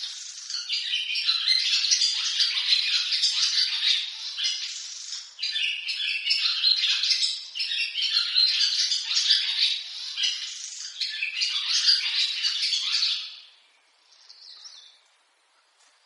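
Barn swallows twittering in a fast, dense chatter of chirps and warbles, broken by short pauses. The chatter stops about 13 seconds in, leaving one faint short call before near silence.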